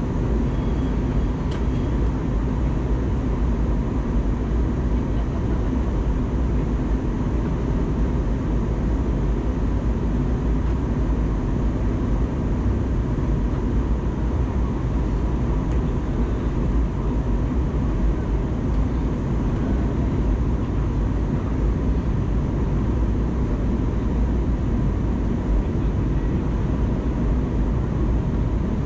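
Steady in-flight cabin noise of an Airbus A320neo heard from a window seat: the rush of airflow and the running of its Pratt & Whitney PW1100G geared turbofan engines, with a faint steady hum above the rumble.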